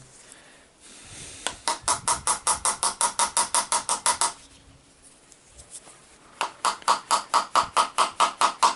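Fine sandpaper rubbed quickly back and forth over the commutator of a GAZelle heater fan motor to clean it, in two bouts of about six strokes a second with a short pause between.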